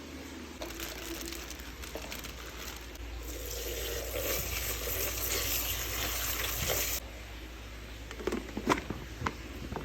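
Tap water running as bilimbi flowers are washed. The flow builds about three seconds in and stops abruptly about seven seconds in, and a few sharp knocks follow near the end.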